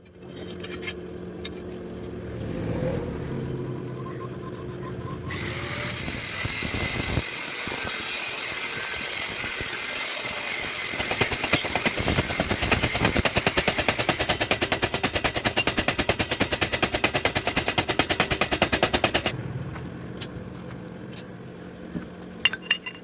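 Metalworking machinery in a blacksmith's shop: a motor hum, then from about five seconds in a loud, harsh grinding-like noise, joined by a rapid, even run of strikes, before both stop and the hum continues.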